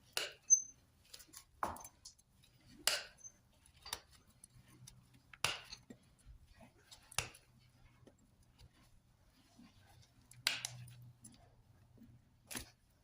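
Hoof trimming: farrier's tools cutting and scraping hoof horn, making short, sharp snips and scrapes about every one to two seconds, with a faint steady hum underneath.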